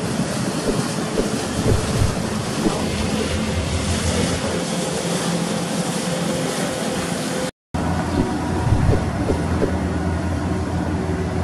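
Steady low drone of a passing passenger riverboat's engine, several even tones under a wash of wind and water. The sound drops out completely for a moment about two-thirds of the way through.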